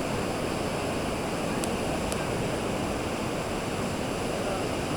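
Whitewater of a canoe slalom course rushing steadily, with two faint clicks about one and a half and two seconds in.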